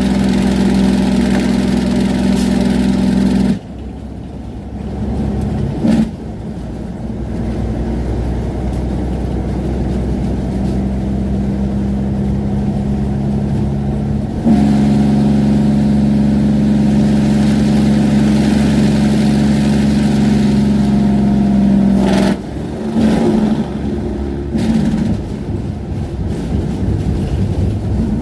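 Semi truck's engine brake running on a long downhill grade: a loud, steady drone that cuts out a few seconds in, leaving quieter engine and road noise. The drone comes back about halfway through, drops out again, and switches on and off briefly near the end.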